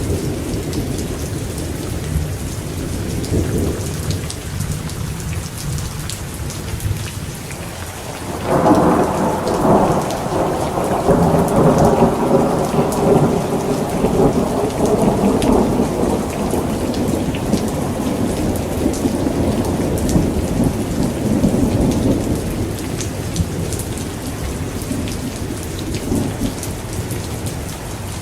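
Thunderstorm: steady rain falling, with a long roll of thunder that breaks in suddenly about a third of the way through, rumbles on for over ten seconds, and fades back under the rain.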